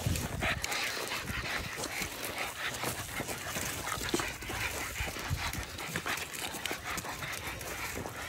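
Boston terriers play-wrestling and chasing: a busy jumble of short dog noises and scuffling.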